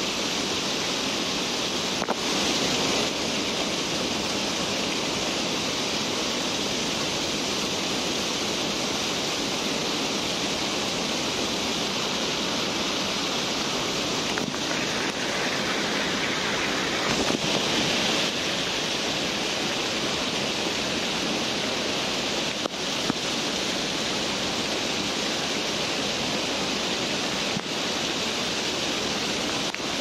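Waterfall: a steady, even rush of water cascading down close to the microphone.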